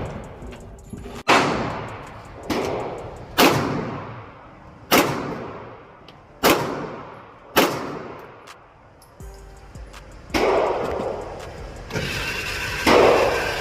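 Gunshots at a shooting range: about eight single shots fired at an uneven pace, a second or more apart, each followed by a long echoing tail.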